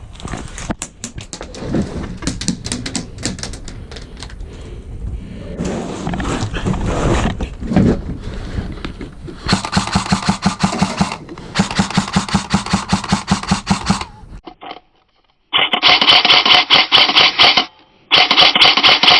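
Airsoft electric guns firing rapid full-auto bursts, a fast train of sharp clicks, loudest in two long bursts mid-way. The sound cuts out abruptly twice near the end.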